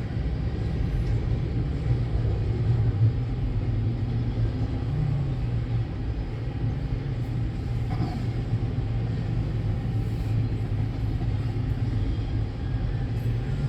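Freight train rolling past a railroad crossing: a steady low rumble of the cars on the rails.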